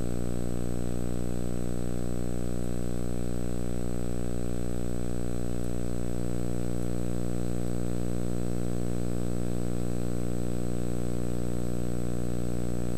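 Steady electrical hum with a buzzy edge and a faint high whine above it, unchanging throughout: mains hum on the audio track of an old training videotape.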